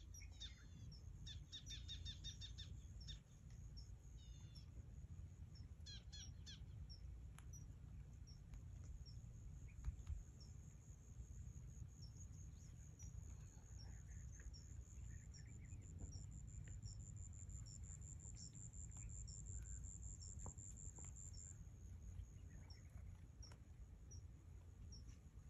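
Quiet outdoor ambience of birds and insects: a few bird chirps in the first several seconds, a high chirp repeating about twice a second throughout, and a steady high insect trill through the middle. A faint low rumble lies underneath.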